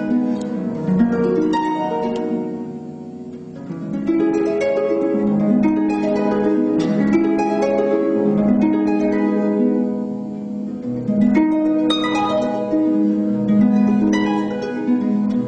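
Solo harp music: plucked strings sounding notes and chords that ring on over one another, with a softer passage about three seconds in.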